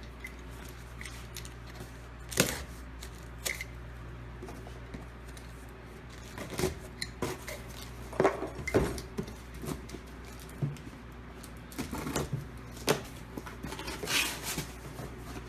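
Scattered clicks, taps and knocks of boxed parts and cardboard packaging being handled and unpacked, over a low steady hum.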